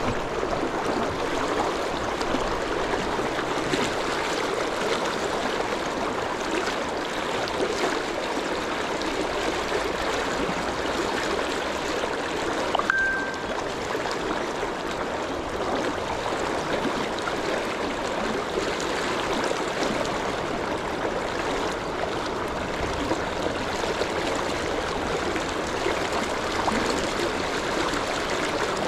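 River water rushing steadily, an even noise throughout, with a brief high beep about halfway through.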